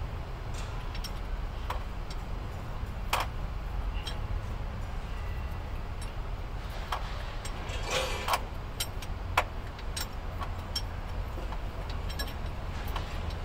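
Scattered metallic clinks and ticks of hand tools against fittings on a truck diesel engine during repair work, over a steady low rumble. The sharpest knocks come about three seconds in and in a short cluster around eight to nine seconds.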